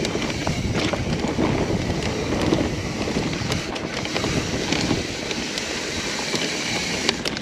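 Mountain bike riding down a dirt trail: steady wind rushing over the camera microphone, with tyre noise and frequent small knocks and clicks from the bike over rough ground.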